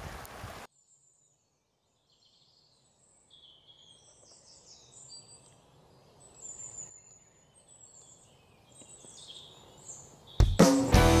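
Running stream water for a moment, cut off abruptly; then birds chirping over a faint hiss. Near the end, guitar music starts abruptly and loudly.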